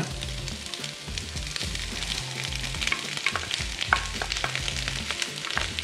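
Oil sizzling and crackling in a hot wok as pieces of crispy fried pork go in among chunks of onion and green bell pepper.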